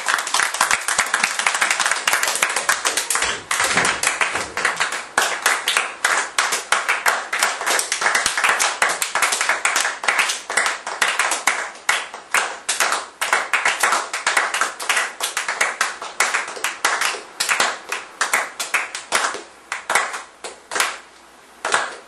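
A small group of people clapping their hands, dense and fast at first, thinning out over the last few seconds into scattered single claps.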